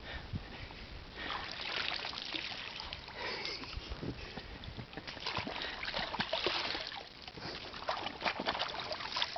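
Shallow water splashing, sloshing and dripping as a wooden canoe paddle scoops a rubber clog up out of the water.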